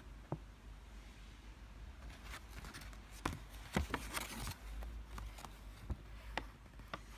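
Handling noise as a Zippo lighter and its packaging are turned over in the hands: scattered light clicks and taps, with a brief rustle about four seconds in.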